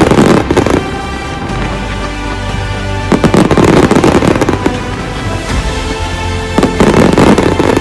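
Aerial fireworks going off in three loud bursts of dense crackling and popping: one at the start, one about three seconds in, and one near the end. Music with sustained notes plays underneath.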